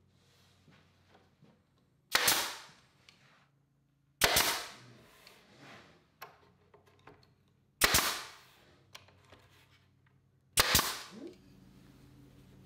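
Pneumatic nailer firing four times, nailing roundover molding onto the top edge of a wooden bookcase. Each shot is a sharp crack followed by a short hiss that fades away, the shots a couple of seconds apart.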